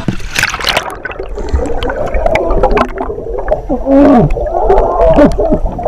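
Water splashing and gurgling around an action camera dipped into cold water, heard muffled and bubbling, with low moaning sounds that slide in pitch.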